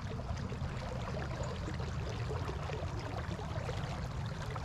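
River current flowing steadily over a shallow, rippled run.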